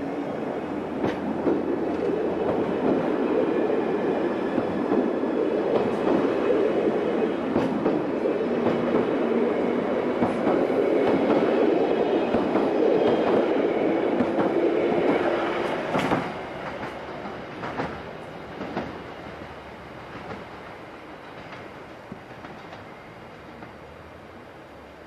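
London Underground 1983 Tube Stock train running on the rails, its wheels clacking over rail joints. The rumble builds early on and stays strong, then one sharp clack about sixteen seconds in, after which the sound falls away.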